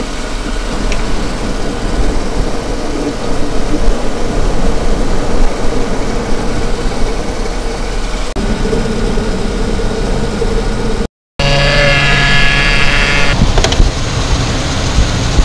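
1997 GMC Sierra's 4.3L Vortec V6 idling steadily. About twelve seconds in, a brief high whine with several tones joins it.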